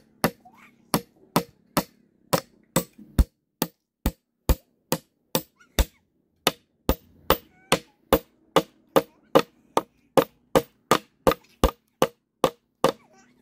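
Nails being hammered into split green bamboo slats with a large knife used as a hammer: a steady run of sharp knocks, about two to three a second, with a brief pause about six seconds in, stopping just before the end.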